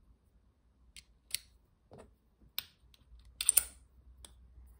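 Scattered small sharp metal clicks as screwdriver bits and a stubby bit driver are handled and a bit is fitted, with a quick cluster of clicks toward the end.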